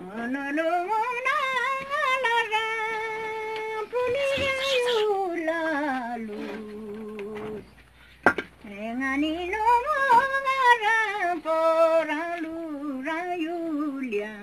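An elderly woman singing a Ladakhi song unaccompanied, in long wavering notes that climb and then fall to a long low held note. She sings two such phrases, with a short pause and a single sharp click about eight seconds in.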